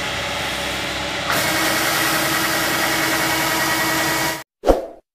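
Kubota DC-70G combine harvester's diesel engine running while its unloading auger discharges grain into a sack. About a second in the sound steps up louder, with a new steady hum. Near the end it cuts off abruptly, followed by one short loud burst.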